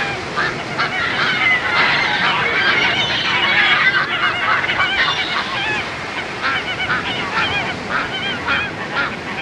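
Many animals chattering at once: a dense chorus of short, overlapping calls over a steady background hiss.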